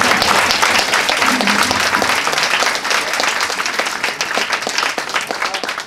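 Audience applauding, many hands clapping together, dying down near the end.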